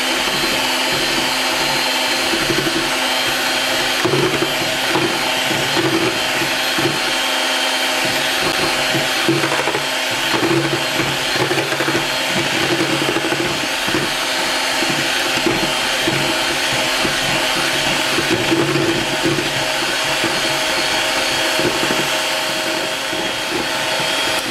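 A 220-watt electric hand mixer runs steadily at speed, its beaters whipping egg whites and sugar in a bowl. The whites are being beaten toward stiff, meringue-like peaks.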